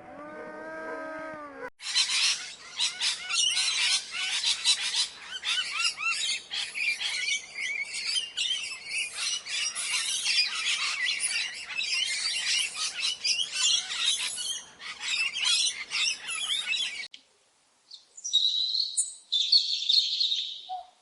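A drawn-out howl ends about two seconds in. A dense chorus of many small birds chirping and twittering then runs for about fifteen seconds and cuts off suddenly. After a short silence come two brief high bird calls.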